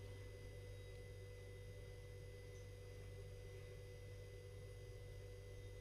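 Near silence: a faint, steady hum with no stirring or scraping heard.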